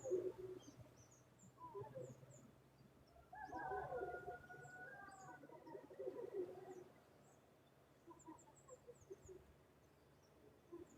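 Faint pitched animal calls from the forest, the strange sound likened to a tokay gecko but much bigger: a few short calls near the start, then a longer run of several overlapping, gliding calls from about three to seven seconds in. Short high chirps sound on and off.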